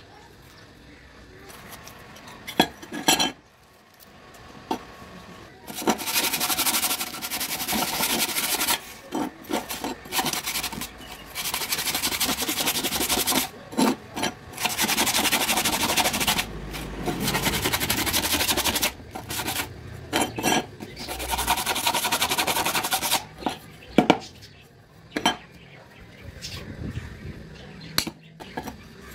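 Sandpaper rubbed back and forth by hand over flat sheet-metal plates, in long stretches of scraping strokes with short pauses between them. A few sharp metallic knocks as the plates are handled and set down.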